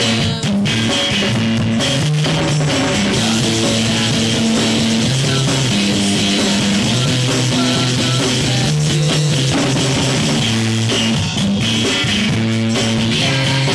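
Studio recording of a rock band playing guitar, bass and drum kit, with the bass moving between a few low notes.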